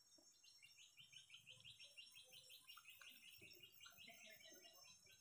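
Faint bird trill: a long run of quick chirps, about eight a second, that breaks off near the end, over a steady high hiss.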